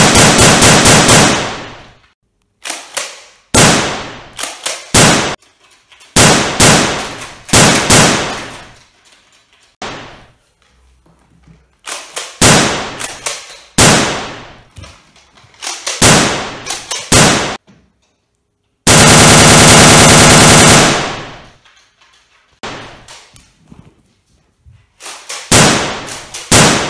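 Gunfire sound effects: bursts of rapid automatic shots, each burst ringing off, repeating every second or two. About two-thirds of the way through comes a longer unbroken burst of very rapid machine-gun fire lasting about two seconds.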